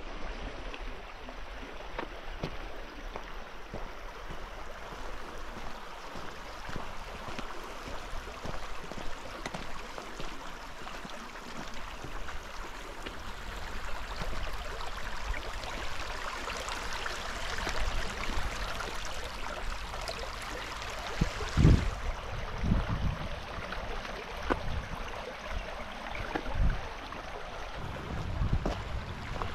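Stream water running steadily, growing louder towards the middle, with a few low thumps in the last third.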